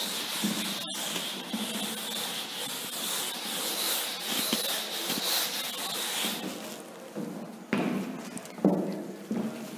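A cloth duster rubbing chalk writing off a chalkboard, a steady scrubbing that stops about two-thirds of the way through, followed by a couple of soft thuds.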